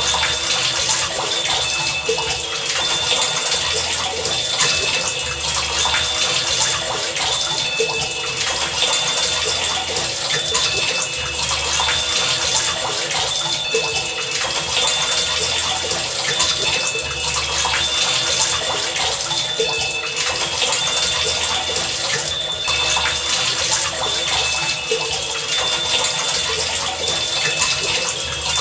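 Heavy rain falling steadily, with short high tones and low pulses recurring every second or two over the rain.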